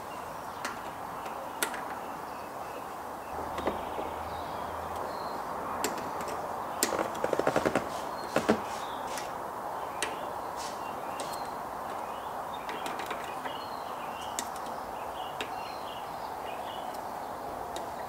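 Scattered sharp metal clicks and taps from a hand tool working on the MX-5's short shifter mounting, with a quick run of about ten clicks a little before halfway and two louder clicks right after, over a steady hiss.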